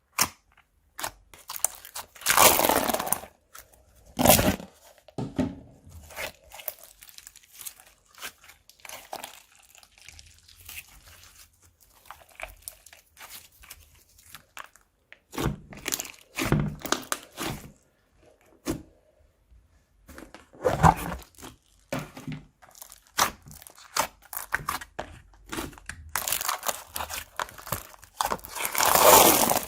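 Hands squeezing and kneading a large mass of crunchy slime, giving irregular crackles and pops. The louder crunching comes in bursts, with the longest near the end.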